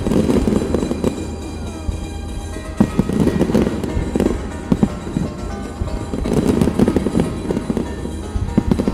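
Fireworks display going off in a rapid series of bangs and crackles, with music playing.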